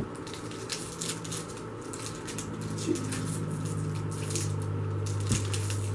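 Foil Pokémon booster pack wrapper crinkling and crackling in the hands as it is worked at and torn, a tough pack to open, over a low steady hum.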